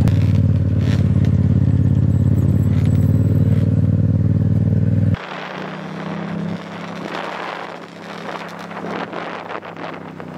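Motorcycle engine running close to the microphone with a steady low drone. About five seconds in it drops abruptly to a quieter engine hum under wind and road noise while riding.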